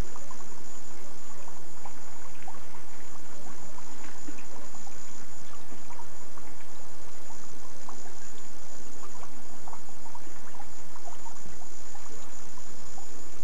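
Footsteps in rubber waders sloshing through shallow floodwater and wet leaves, with scattered small splashes and ticks over a steady hiss.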